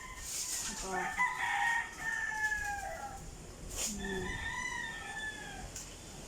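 A rooster crowing twice, two long calls that drop in pitch at the end, about three seconds apart.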